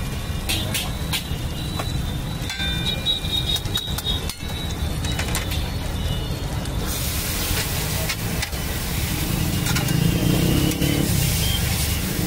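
Busy street-food stall noise: a steady low rumble with scattered clicks and scrapes, and a hiss that grows louder about seven seconds in.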